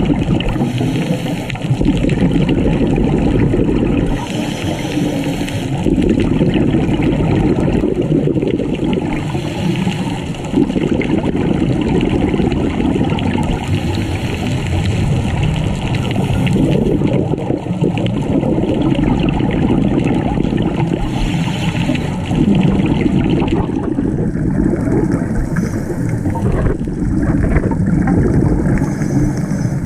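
Underwater sound on a diver's camera: a steady rushing of water, with a burst of scuba exhalation bubbles every five seconds or so.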